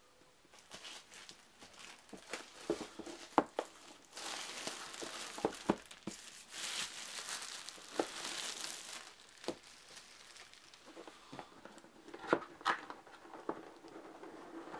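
Plastic shrink-wrap being torn and pulled off a board game box, crinkling and crackling, heaviest in the middle stretch, with scattered sharp taps and clicks as the box is handled.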